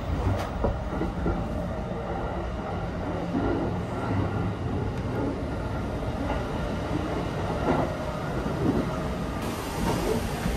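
Steady low rumble and hum inside a sleeper-train carriage, with a few soft knocks scattered through it.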